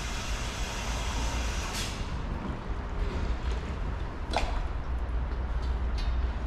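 Water running at full pressure into a 200-gallon plastic water tank as it is topped off, a steady filling rush over a low rumble, with a couple of sharp clicks late on.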